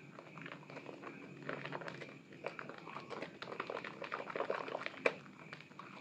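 Hands squeezing and kneading soaked, lathered Asepso orange bar soap in foamy water: a dense run of wet squelches and crackling bubble pops, with one sharper pop about five seconds in.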